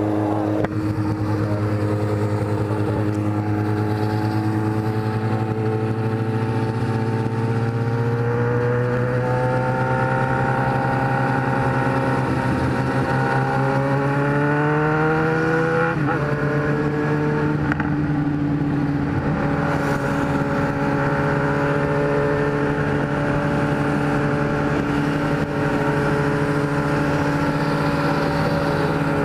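Kawasaki Z1000 inline-four engine under way at highway speed. Its revs climb slowly for about sixteen seconds, drop suddenly on an upshift, then hold steady, with wind rushing over the bike.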